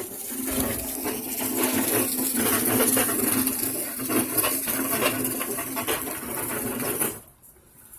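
Irregular metallic clanking and rattling of an old barbecue pit being lifted and shifted, with a steady hum underneath. It stops abruptly near the end.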